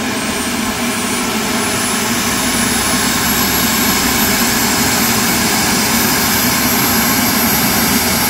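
Turbine engine of a large 3-metre RC model jet running up: a high whine rises over the first few seconds and then holds steady over a loud, constant rush of exhaust.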